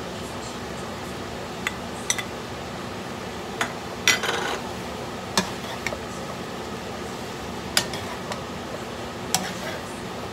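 Metal spoon clinking and scraping against a stone-coated wok as vegetables are stir-fried, with a handful of sharp clinks, the loudest cluster about four seconds in. Under it runs a steady sizzle.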